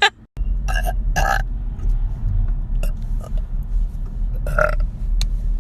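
A woman burping: two short burps close together about a second in, then a stronger one near the end, over a steady low rumble.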